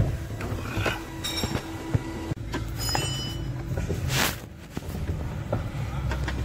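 Clicks and knocks of metal parts being handled on a car's steering column, with brief high squeaks and a short hiss about four seconds in, over a steady low hum.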